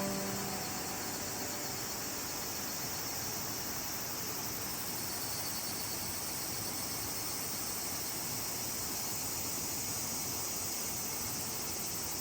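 Steady outdoor ambience at a river: an even, high-pitched insect chorus over a constant rushing hiss, with the tail of music fading out at the start.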